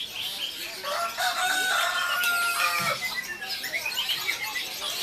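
Many caged songbirds chirping and singing at once, with a rooster crowing once about a second in, holding its call for around two seconds.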